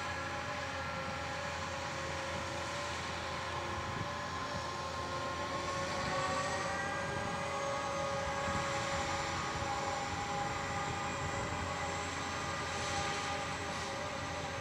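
Ropa Euro Tiger sugar beet harvester's V8 diesel running steadily under load, a constant drone carrying several whining tones that glide upward about six seconds in.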